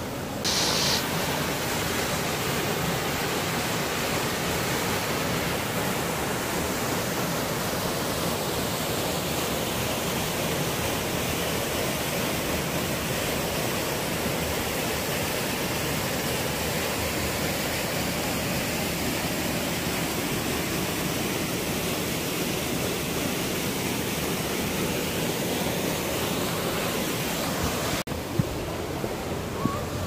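Steady rush of a waterfall and white water pouring through a rocky gorge. Near the end the water sound drops away and a few sharp clicks are heard.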